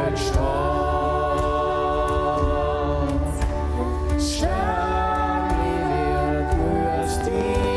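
Choral music: voices holding long chords that change every few seconds.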